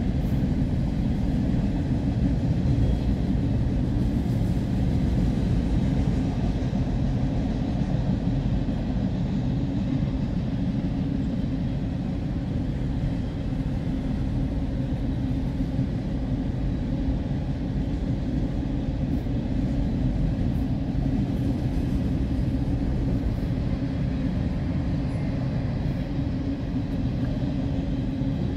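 Freight train of enclosed autorack cars rolling past, its steel wheels on the rails making a steady low rumble throughout.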